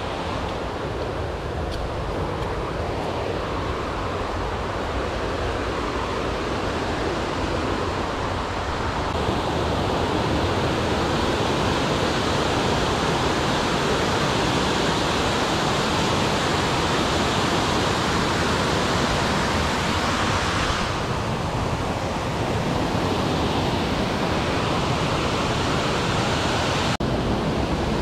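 Steady roar of rushing water from a waterfall or creek cascade. It grows louder about nine seconds in, eases a little around twenty-one seconds, and has a brief sharp break near the end.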